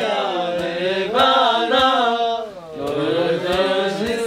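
Singing: one voice holding long, slowly gliding notes over a soft beat a little under twice a second, in a chant-like style.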